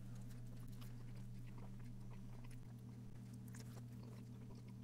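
Faint biting and chewing of a soft flour-tortilla taco filled with beef, refried beans and rice, with small scattered mouth clicks, over a steady low hum.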